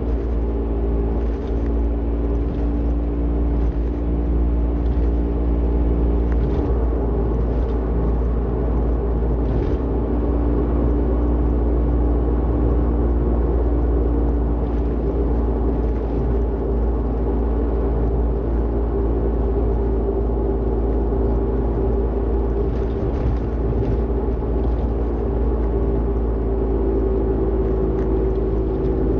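Toyota Vitz (NCP13) on the move with a steady low rumble and a loud 'gooo' drone, several hum tones drifting slowly in pitch: the noise of a worn wheel hub bearing.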